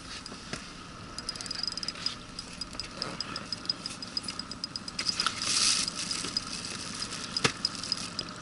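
Fishing reel clicking evenly, about six clicks a second, as line is wound in on a hooked taimen. A short splash a little past halfway.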